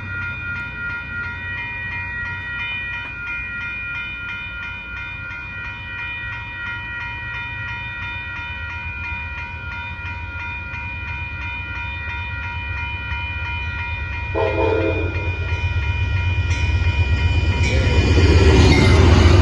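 A grade-crossing warning bell rings steadily as Amtrak's Texas Eagle passenger train approaches at speed, its locomotive rumble building. A short horn blast sounds about three-quarters of the way through. The train then rushes in loud at the crossing near the end.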